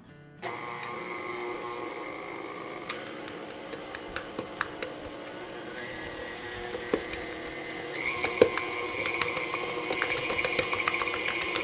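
Electric stand mixer kneading puri dough with its dough hook: a steady motor whine that starts about half a second in, with irregular ticks and knocks from the dough and hook in the steel bowl. About eight seconds in the whine grows louder and higher.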